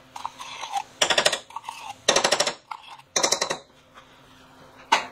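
Spoon scraping tomato paste out of a tin can in three quick rattling bursts, then one sharp knock near the end.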